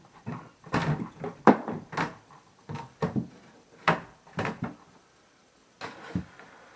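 Irregular wooden knocks and clunks, about a dozen, as flat-pack base cabinet panels and parts are handled and knocked together during assembly.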